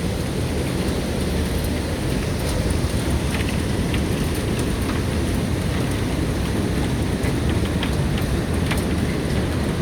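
Hailstorm: a steady heavy roar of falling hail and rain, with many sharp, irregular ticks of individual hailstones striking hard surfaces.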